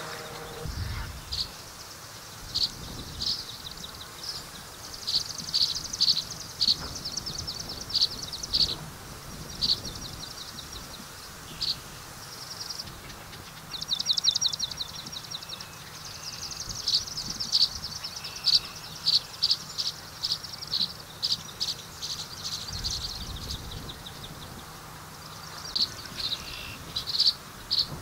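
Tree swallows twittering: a string of short, high chirps with a fast, rattling trill about 14 seconds in.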